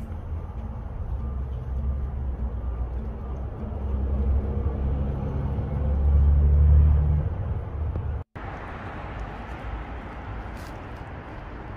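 A motor vehicle running, a low steady rumble that grows louder about six to seven seconds in and cuts off abruptly a little after eight seconds, followed by a fainter, even hiss.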